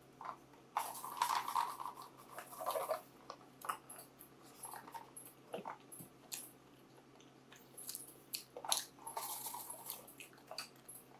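Close-miked eating sounds: wet mouth clicks and chewing, with two denser stretches of about two seconds each, one starting about a second in and one about eight and a half seconds in.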